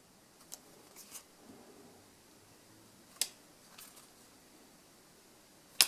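Yu-Gi-Oh! trading cards being handled and changed over in a hand-held stack: a handful of light clicks and flicks of card stock, with sharper snaps about three seconds in and near the end.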